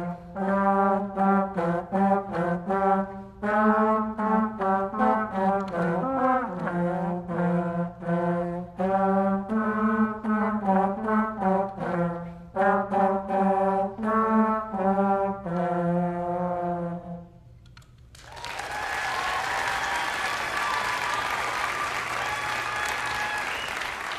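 Student brass ensemble of trumpets and a trombone playing a short piece in separate, rhythmic notes, ending with a held chord about 17 seconds in. Audience applause follows.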